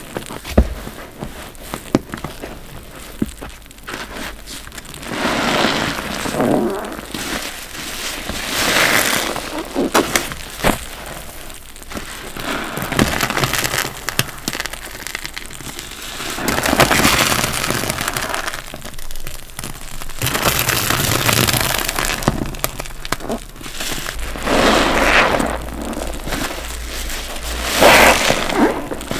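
Wet block sponges squeezed again and again, each squeeze a squelching rush of water lasting a second or two, with crackling clicks in between.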